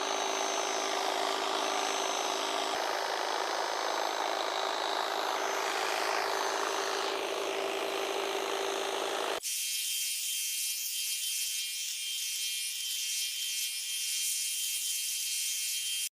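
Toro Flex-Force 60-volt battery hedge trimmer running steadily while it cuts through a bush. About nine seconds in, the sound switches abruptly to a thinner, high-pitched hiss.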